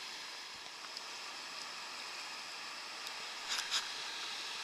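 River water rushing over shallow rapids, a steady even hiss, with two brief scuffs about three and a half seconds in.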